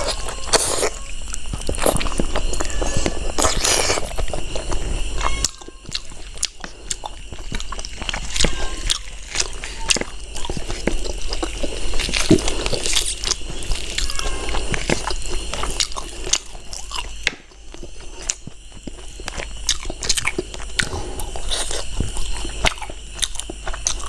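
Close-miked biting and chewing of curried pork ribs and rice eaten by hand, with many short, wet mouth clicks.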